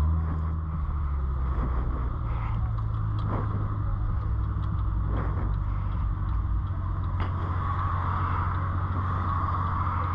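Steady drone of engine and road noise inside the cabin of a C7 Corvette Z06 cruising at an even speed, its supercharged 6.2-litre V8 holding a low, constant note.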